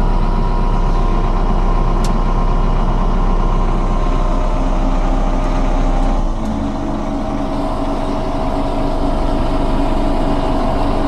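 Small diesel engine of a homemade ridable garden-railway locomotive idling steadily, heard from inside its cab. About six seconds in its note shifts and the sound settles slightly quieter.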